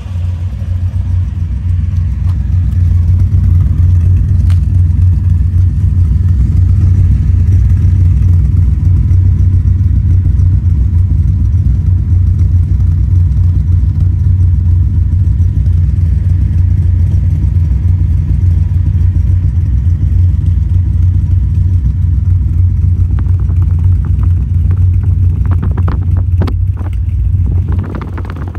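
Exhaust of a modified 1971 Nissan Skyline 2000GT (KGC10) inline-six on triple carburettors, running steadily at a constant speed with a low, even note from the twin-tip tailpipe. A few short clattery noises come near the end.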